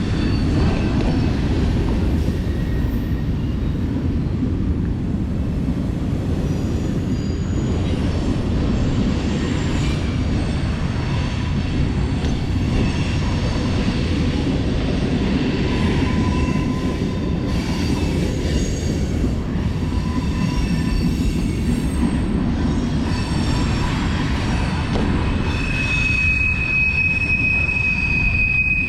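BMX bike rolling over concrete skate-park ramps: a steady rumble of tyres with scattered squeaks and rattles. A high, steady squeal starts near the end.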